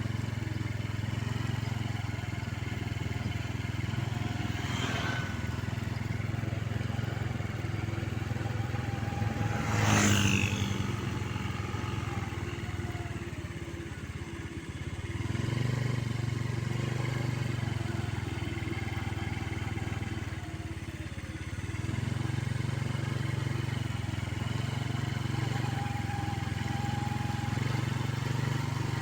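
Mitsubishi Canter truck's diesel engine running with a steady low drone that sags and falters twice midway: the engine coughing. A loud, brief sharp sound cuts through about ten seconds in, and a fainter one about five seconds in.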